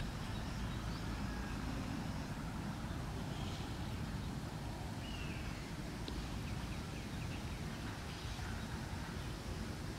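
Steady low outdoor rumble, with a faint short falling chirp about five seconds in.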